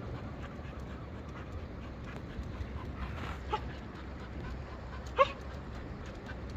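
Two short animal calls over a steady low rumble: a faint one about three and a half seconds in and a louder one about five seconds in.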